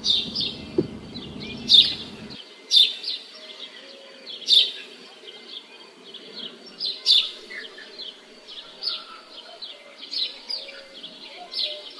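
Birds chirping: many short high chirps, with a louder call sweeping downward every few seconds. A low background rumble drops away about two seconds in.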